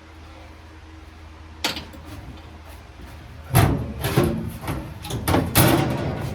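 A single knock, then a few seconds later a run of loud bangs and clatters, several in quick succession, over a low steady hum.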